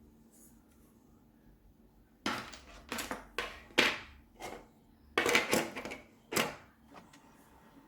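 Clatter of small hard objects being handled: a run of sharp knocks and scrapes about two seconds in, in two clusters with a short gap, then it settles again.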